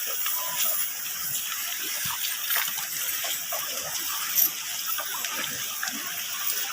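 Steady rush of flowing river water, with scattered small splashes and clicks and one sharper knock a little past the middle.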